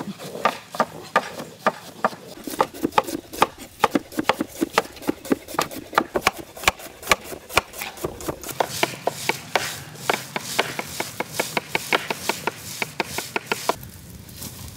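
Food being chopped with a knife on a wooden board: quick, regular strikes, several a second, that stop about a second before the end.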